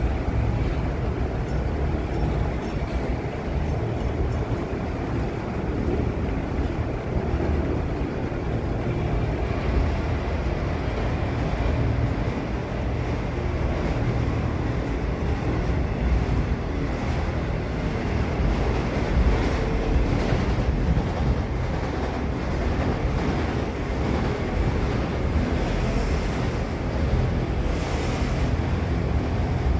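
Freight train of autorack cars rolling past close by: a steady rumble of steel wheels on rail, with occasional faint clicks, more of them in the second half.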